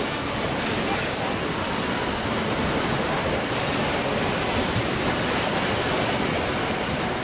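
Rough sea waves breaking over shoreline rocks, a steady rushing wash of churning surf.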